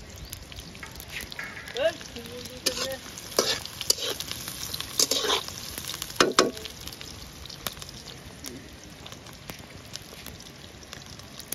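Chopped onions sizzling in hot oil in a metal kadhai, with a spatula scraping against the pan in several stirring strokes during the first six or seven seconds, then just the steady sizzle.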